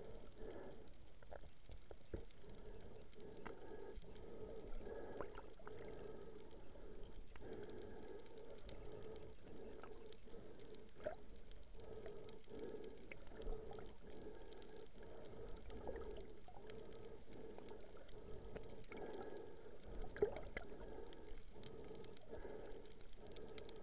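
Faint muffled underwater sound picked up by a camera in its waterproof housing during a night dive: a steady low hum with scattered light clicks and knocks.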